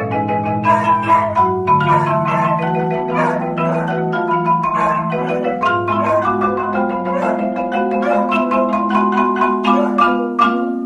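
Two marimbas played together as a duet: fast runs of struck mallet notes over ringing low notes.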